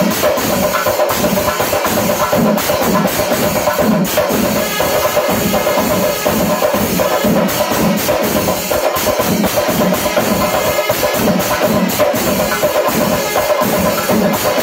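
Panchari melam, a Kerala temple percussion ensemble: rows of chenda drums beaten with sticks in a fast, dense rhythm, with ilathalam cymbals clashing and kombu horns sounding a steady note over the drumming.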